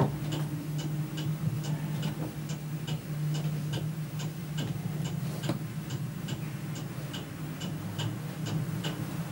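Steady ticking, about three ticks a second, over a low steady hum, with a single soft knock about five and a half seconds in.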